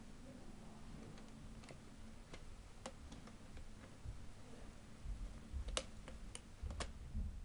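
Small plastic Lego Technic parts clicking as a towball hitch piece is fitted onto a model tractor's rear: a few faint, scattered sharp clicks, with soft handling thumps in the second half.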